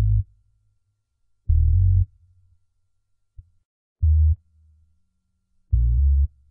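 Deep synthesizer bass notes from an electronic music track. Three short held notes, each about half a second long, come a couple of seconds apart with silence between them.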